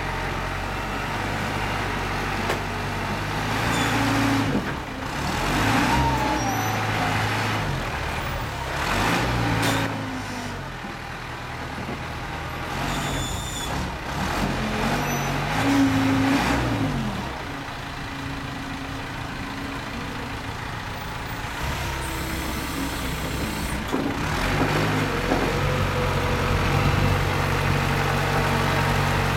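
Hyster forklift engine working a Kaup bale clamp, revving up and down several times as the clamp and mast lift a load of pulp bales. It runs steadier and a little louder near the end as the truck pulls away with the load.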